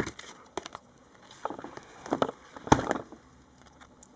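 Paper trading cards being handled and laid down: a few short, scattered taps and slides of card against card, the sharpest click about two-thirds of the way through.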